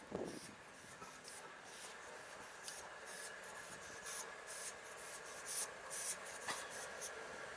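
Faint, steady hiss from the approaching steam locomotive 60163 Tornado, a Peppercorn A1 Pacific, with scattered sharp scratchy ticks over it. The sound grows slightly louder toward the end.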